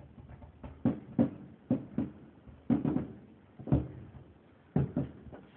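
Fireworks bursting overhead, about nine sharp booms in an irregular series, some coming in quick pairs.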